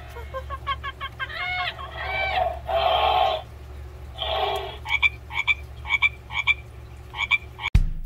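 Recorded frog croaking played through the small speaker of a children's electronic animal sound book, as a series of short repeated calls.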